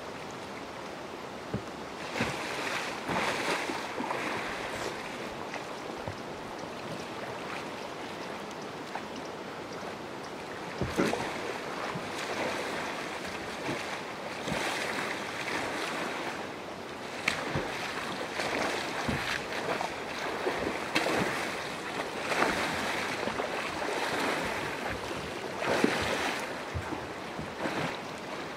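Paddle and freestyle kayak churning the water in repeated splashy surges during stalls and tipping moves, over a steady wash of moving water.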